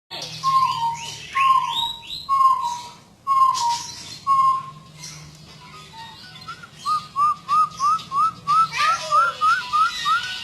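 Jungle bush quail calling in clear whistles: first a slow series of notes that slide slightly downward, about one a second. Then, after a pause, a faster run of about three short rising notes a second that climb gradually in pitch. Fainter higher chirps of other birds sound alongside.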